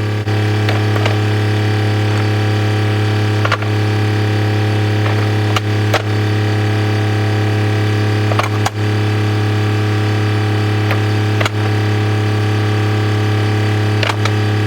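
A steady, unchanging mechanical hum like an idling engine, with a sharp knock every couple of seconds.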